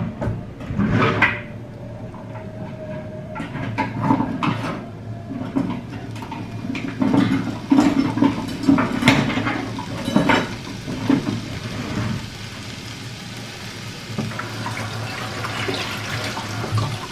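Water running, with irregular knocks and clatter.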